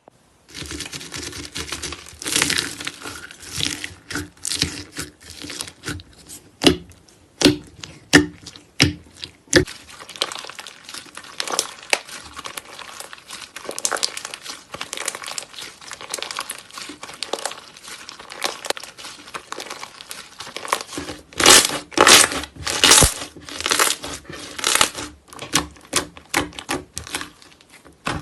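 Slime being squeezed, stretched and poked by hand at a close microphone, giving dense crackling and popping with scattered sharp snaps. A louder run of crackles comes about three quarters of the way through.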